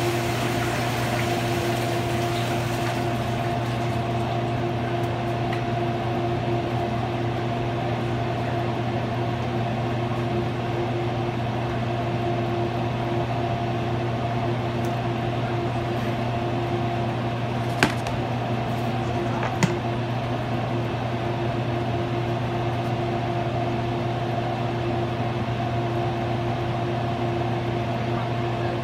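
Steady mechanical hum of commercial kitchen equipment, with two sharp clicks about two seconds apart a little past the middle.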